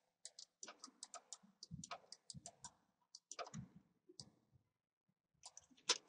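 Faint computer mouse and keyboard clicks in quick irregular runs, with a pause of about a second a little after four seconds in and the sharpest clicks near the end.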